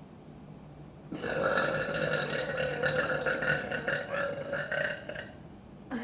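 A woman's long burp, lasting about four seconds, starting about a second in.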